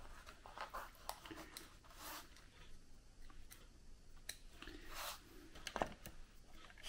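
Faint clicks and rustles of hands handling a small screwdriver and the opened plastic alarm clock case, with a sharper click near the end as the screwdriver is set on a screw in the circuit board.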